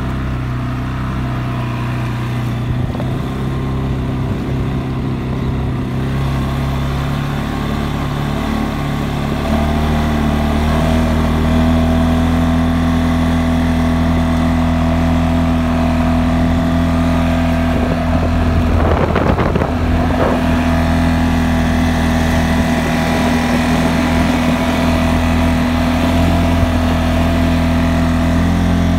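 CFMOTO CForce 600 ATV's single-cylinder, liquid-cooled engine running steadily under way. It rises in pitch about ten seconds in, then holds at the higher speed. A brief rush of noise comes about two-thirds of the way through.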